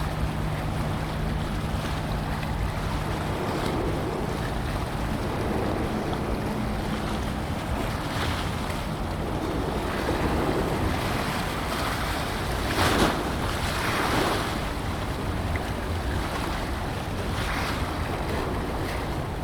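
Waterside ambience of wind buffeting the microphone and water washing, with a low steady drone from a passing ship's engine that ends about seven seconds in. A few louder swishes come later, the strongest a little past the middle.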